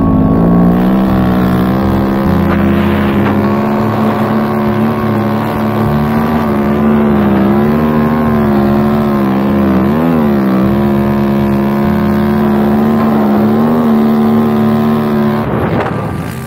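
Snow bike's dirt-bike engine running under throttle through deep powder, its note wavering up and down, with a quick dip and rise about ten seconds in. The engine sound cuts out near the end.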